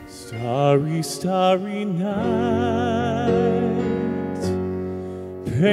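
A male singer sliding up into a long held note with a wide vibrato over a live band's accompaniment, then swooping up into the next phrase near the end.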